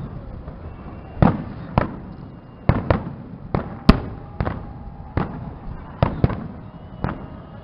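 Fireworks display: aerial shells bursting in an uneven run of about eleven loud bangs, half a second to a second apart, each trailing off briefly.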